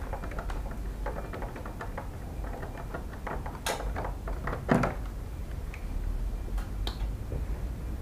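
Scattered light clicks and taps of hands and tools handling parts during repair work, with a sharper click and then a louder knock about four and five seconds in, over a steady low hum.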